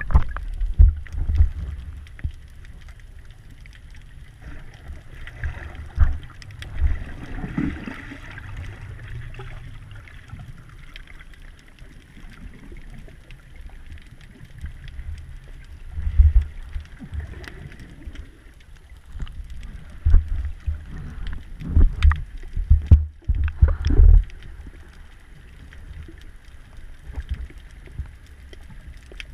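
Muffled underwater sound picked up by a camera in a waterproof housing: a steady hiss with irregular low thumps of moving water, in clusters around the middle and about three quarters of the way through.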